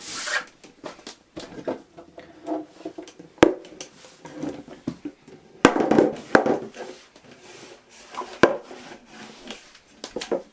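IKEA Lack side table being handled as its legs are folded on 3D-printed hinges: irregular knocks and rustling, with three sharp clacks spread through.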